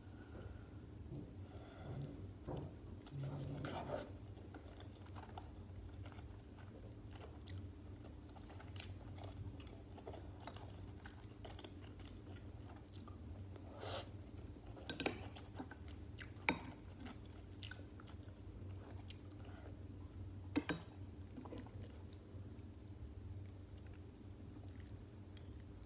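Close-miked chewing of stuffed cabbage rolls: soft wet mouth sounds and crackles, with a few sharper clicks now and then, over a steady low hum.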